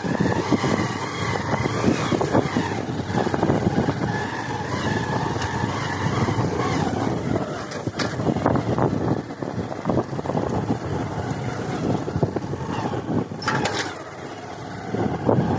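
Motorcycle ridden along a rough, rutted dirt road: the engine runs steadily under a noisy rush, with many short knocks and rattles as it jolts over the bumps.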